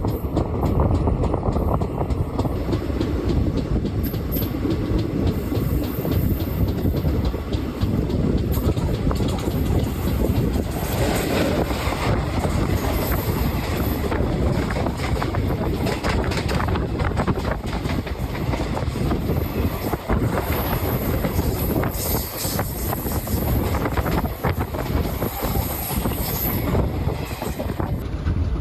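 Indian Railways express train running at speed, heard from aboard a coach: a steady rumble with the wheels clattering over rail joints throughout.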